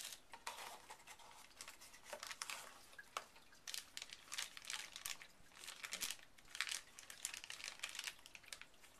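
Clear plastic bag crinkling in irregular bursts as a cable sealed inside it is handled.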